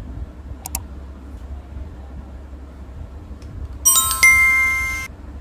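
Notification-bell sound effect from a subscribe animation: a bright chime struck twice in quick succession near the end, ringing for about a second and then cutting off abruptly. It comes after a short double click, over a steady low rumble.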